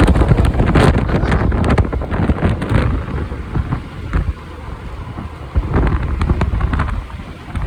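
Typhoon wind buffeting the microphone of a moving motorcycle, a loud gusting rumble that eases briefly about four seconds in before picking up again.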